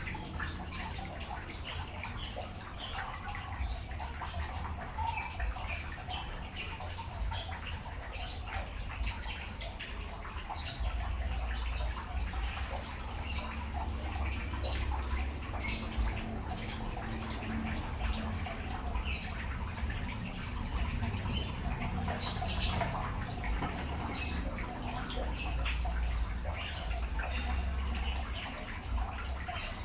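Water splashing and trickling steadily, the outflow of a Sakkai Pro ACT 5000 submersible pond pump being test-run after cleaning, with a low rumble that swells a couple of times.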